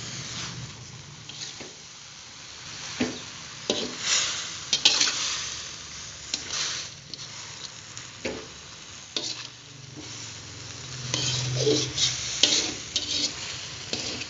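Spatula scraping and tossing water spinach around a metal wok while it sizzles, in irregular strokes about a second apart over a steady frying hiss. The greens are being stir-fried in spice paste until done.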